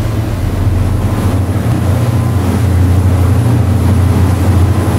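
Motorboat engine running at a steady pitch, a loud low drone with rushing noise over it.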